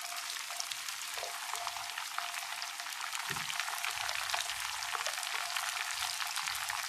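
Chicken kabab pieces deep-frying in a steel kadai of hot oil: a steady crackling sizzle full of fine pops.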